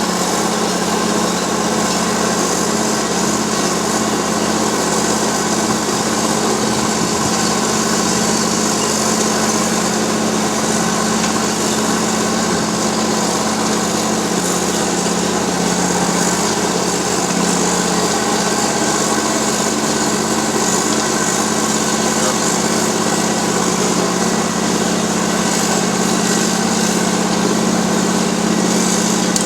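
Wirtgen cold milling machine running steadily, its diesel engine and cutting drum grinding off old asphalt, with a constant low drone under a harsh hiss.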